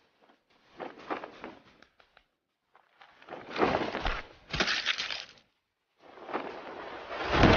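Film fight sound effects: three bouts of noisy crashing and smashing with gaps of silence between, the middle one loudest, holding two heavy thuds close together, with another heavy thud near the end.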